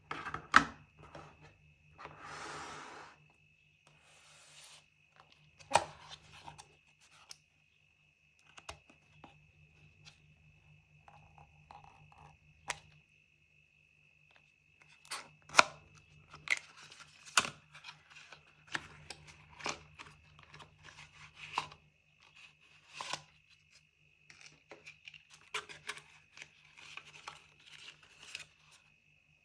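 Packaging being handled and opened: a tearing sound about two to three seconds in, then scattered clicks, taps and rubbing as the box and its contents are handled. A faint steady hum and a thin high tone lie underneath.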